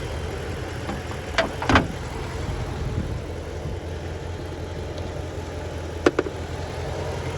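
Dodge Charger R/T's V8 idling steadily, with sharp clunks as the hood is released and raised, twice: about one and a half seconds in and again about six seconds in.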